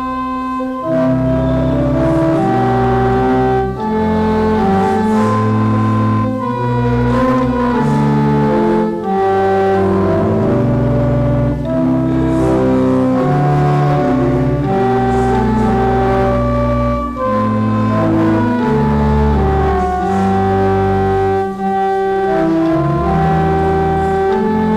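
Church organ playing a hymn tune in slow, sustained chords, with short breaks between phrases.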